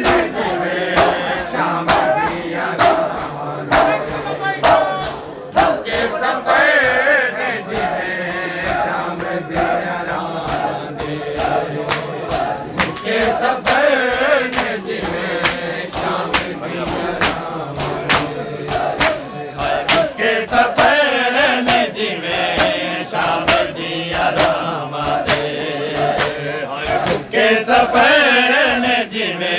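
A crowd of men chanting a Shia lament (noha) together, with many sharp slaps of hands beating on bare chests (matam) mixed in.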